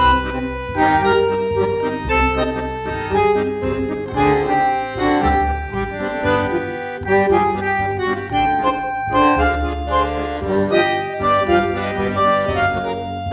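Instrumental background music with held chords that change every second or so over a bass line.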